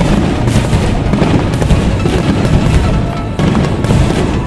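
Non-stop barrage of aerial firework shells bursting overhead, a dense run of booms and crackles, with music playing underneath.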